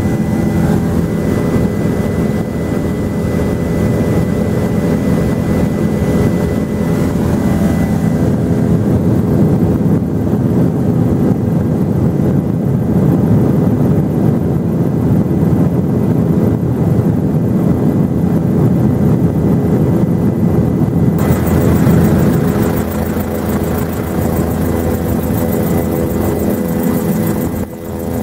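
Helicopter engine and rotor noise heard inside the cabin: a loud, steady drone with a low hum. About 21 seconds in the sound shifts and a high hiss joins it, and near the end it dips briefly.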